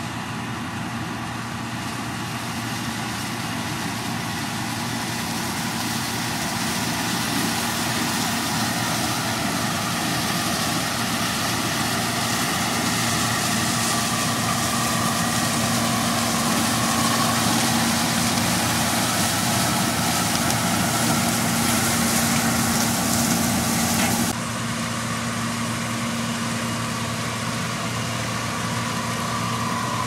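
John Deere 6620 combine harvesting corn, its engine and threshing machinery running with a steady hum and whine that grow louder as it comes closer. The hiss drops away abruptly near the end.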